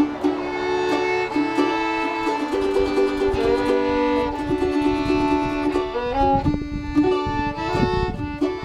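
A fiddle and a mandolin playing a tune together: the fiddle bows a melody of held notes over the mandolin's steady picked strokes.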